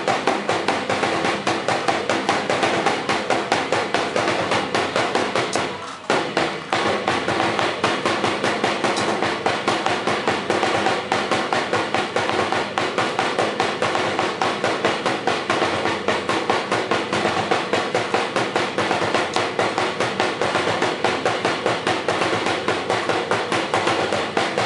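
Drum-driven Sinulog dance music with a fast, steady beat, dropping briefly about six seconds in before picking up again.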